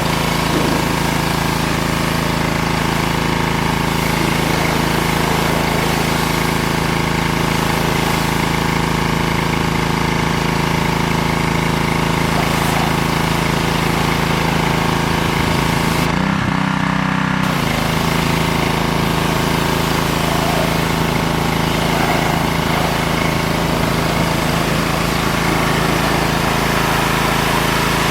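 Pressure washer running steadily, its small engine humming under the hiss of the water jet, with a brief break in the spray about sixteen seconds in.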